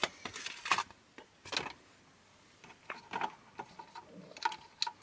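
Scattered light clicks and rustles of a 9-volt battery being handled and the multimeter's snap connector pressed onto its terminals, with a quiet gap of about a second midway.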